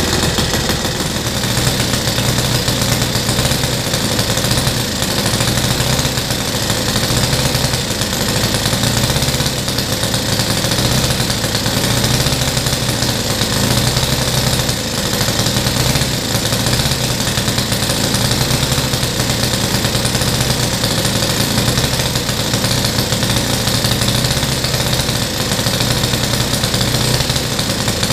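Saito FG-30B 30cc four-stroke gasoline model-airplane engine running steadily on a test stand with its propeller spinning, during its break-in run.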